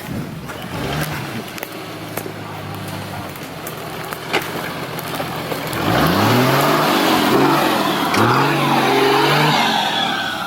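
Off-road 4x4 engine running steadily, then revved hard twice from about six seconds in, the pitch climbing steeply each time and held high before dropping.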